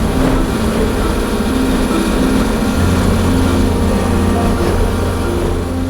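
Skid steer engine running steadily while it works a land leveler over a dirt road; the low engine hum grows stronger about halfway through.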